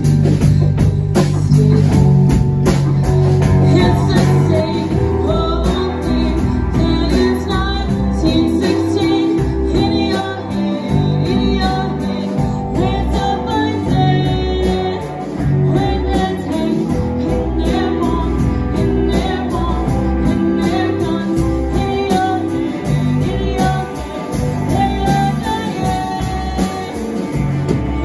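A live band playing a song: guitar and drum kit with singing over them.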